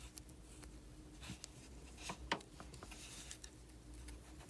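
A few faint clicks and light scratches of small metal parts being handled by hand: the tiny cross pin being fitted back into a Traxxas Slash 4x4 drive shaft in the hub assembly.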